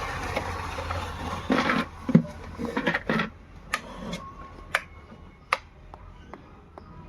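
Rustling handling noise, then a series of sharp clicks and knocks, the clearest coming singly about a second apart in the second half.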